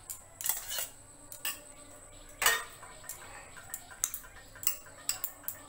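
Metal spoon scraping and clinking against a stainless-steel bowl while thick yogurt is spooned out into a glass bowl. Scattered clinks, the strongest about half a second and two and a half seconds in, with lighter ticks later.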